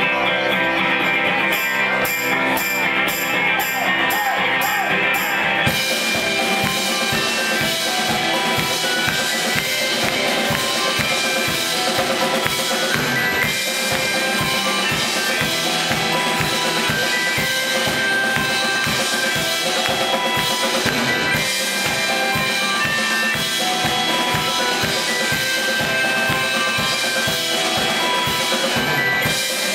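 A live band playing keyboards and drum kit. It opens with sustained keyboard tones over a light pulse, and about six seconds in the full drum kit comes in and keeps a steady beat under the keyboards.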